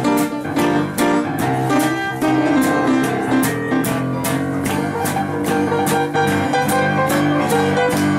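A small string band playing a swing tune: an acoustic guitar strums a steady rhythm under piano accompaniment.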